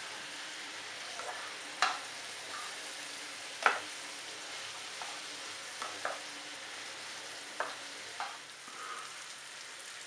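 Diced onion, carrot and celery sizzling in a nonstick frying pan, stirred with a spatula that knocks and scrapes against the pan about six times, loudest twice in the first few seconds.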